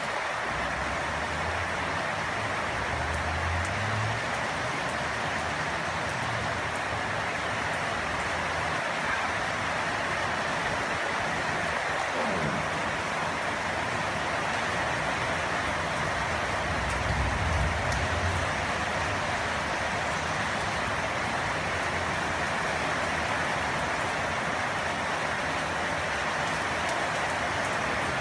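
Steady rain falling. Twice a faint low rumble rises under it, a few seconds in and again a little past halfway.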